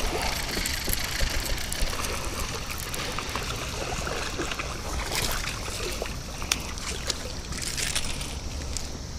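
Water splashing and trickling beside a kayak as a hooked smallmouth bass is reeled to the boat and scooped into a landing net, with a few sharp clicks along the way.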